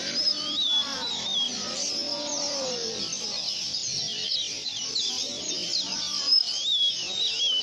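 Many caged songbirds chirping and calling at once, a dense mix of quick high notes and short whistled phrases, one phrase repeating near the start and near the end. Fainter lower sounds lie beneath.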